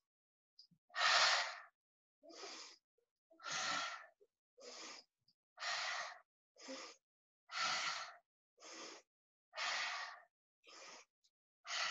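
A woman breathing audibly in and out in a steady rhythm, about one full breath every two seconds, longer louder breaths alternating with shorter softer ones: paced yoga breathing timed to a seated twist.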